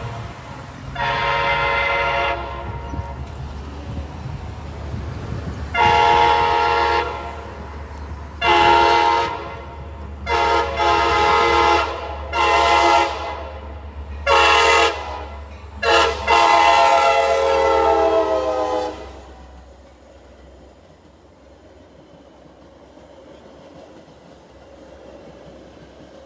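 Train horn sounding a series of about nine blasts, mostly short with one long final blast, over the low rumble of a passing train. The rumble fades away once the horn stops.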